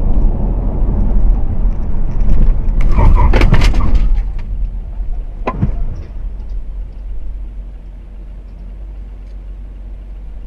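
Steady low road and engine rumble of a car driving, heard from inside the cabin, with a cluster of sharp knocks about three seconds in and a single click a little later.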